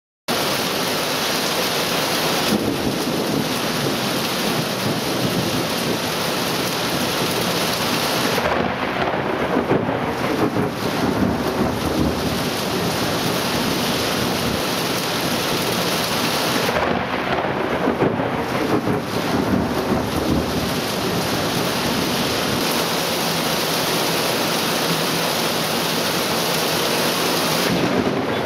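Heavy thunderstorm downpour hissing steadily, with thunder rumbling twice, about a third and about two-thirds of the way through.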